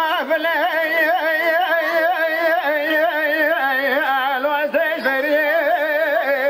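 Unaccompanied Kurdish dengbêj singing: a single voice holds one long, high note, wavering with vibrato and ornamented turns almost without a break.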